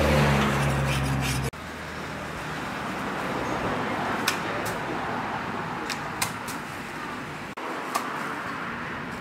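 Street traffic: a vehicle engine running close by cuts off suddenly about a second and a half in, leaving a steady outdoor traffic hum with a few short, sharp clicks.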